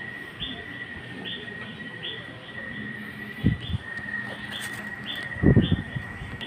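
Styrofoam food containers being handled on a table, with two dull thumps about three and a half and five and a half seconds in. Throughout, short high chirps repeat about two to three times a second over a steady high-pitched whine.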